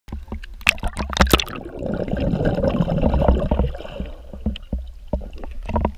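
Water splashing against an action camera held at the surface, then muffled bubbling and gurgling as the camera goes under water. Scattered clicks and low thumps of water against the housing near the end.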